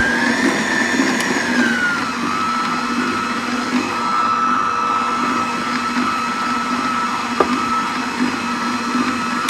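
KICHOT 800W stand mixer's motor running, beating a thick butter-and-egg cake batter. Its whine rises in pitch at the start, then drops to a lower steady pitch about two seconds in, with a single click near the end.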